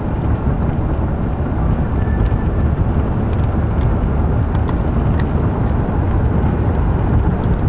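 Steady road and engine noise inside a moving car's cabin: an even low rumble with a few faint ticks.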